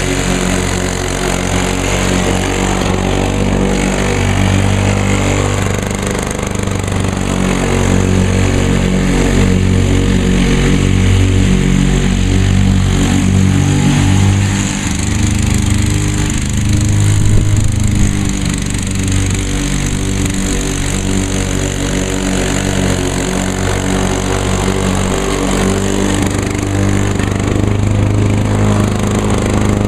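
Lawn-Boy two-stroke walk-behind mower engine running steadily while cutting grass, its note wavering slightly as the load changes.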